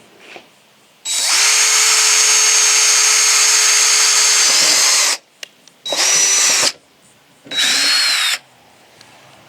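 Power drill running in three bursts: one steady run of about four seconds, then two short spurts, its motor whine dropping in pitch each time the trigger is released.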